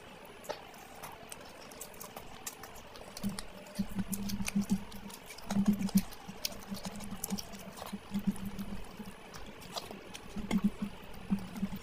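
Close-miked wet chewing and lip-smacking of curry and rice, with many sharp little smacks and clicks. Partway through comes the squelch of curry-soaked rice being mixed by hand on the plate.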